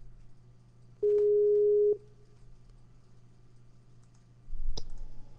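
Telephone line tone while a call is being put through: one steady beep about a second long, about a second in, over a low line hum. Near the end there is a sharp click with a short rush of noise on the line.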